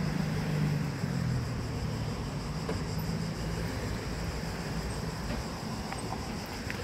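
Car driving past close by on a city street, its engine hum loudest in the first second and fading as it goes by, over a steady background of traffic noise.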